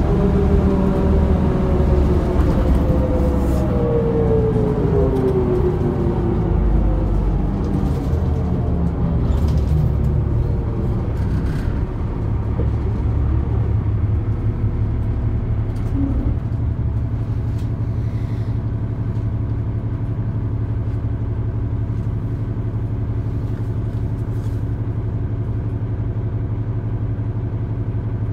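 The 2004 New Flyer D40LF transit bus slowing to a stop, its engine and driveline whine falling in pitch over about ten seconds. Then its Cummins ISL diesel engine idles steadily while the bus stands.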